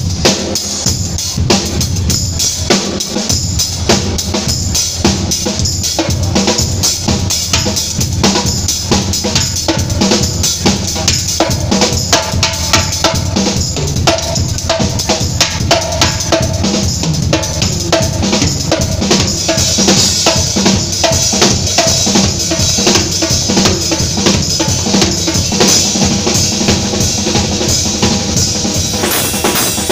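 Acoustic drum kit played live in a steady, driving groove: bass drum, snare and cymbals, with a pop tune's melody running along with it.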